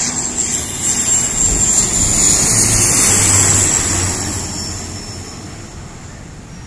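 De Havilland Canada Dash 8-400 turboprop passing low on approach, its two Pratt & Whitney PW150A engines and propellers droning with a high whine. The sound swells to its loudest about three seconds in, with the whine slowly dropping in pitch, then fades as the airliner moves away toward the runway.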